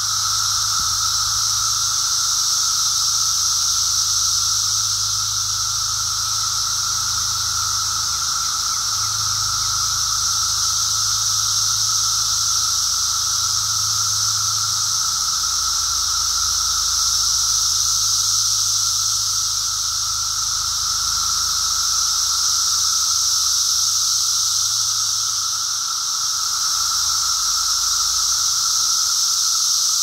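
Brood X periodical cicadas in full chorus: a loud, unbroken wall of sound with a high steady whine and a lower steady drone together.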